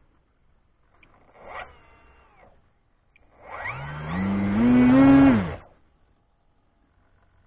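Model aircraft motor spinning a 10x7 propeller in two throttle bursts: a short blip about a second in, then a longer, louder run whose pitch climbs in steps and falls away quickly as it shuts off.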